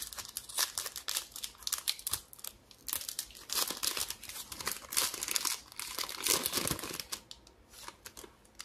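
Foil wrapper of a Bowman baseball card pack crinkling and tearing as it is ripped open. The crackle is heaviest a few seconds in and dies down near the end as the cards come out.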